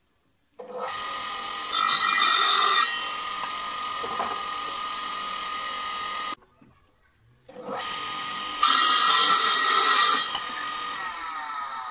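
Small bench-top table saw running with a steady whine, cutting wooden boards. The sound swells louder and harsher while the blade is in the wood: once about two seconds in, and again around nine seconds. It breaks off for about a second just past the middle.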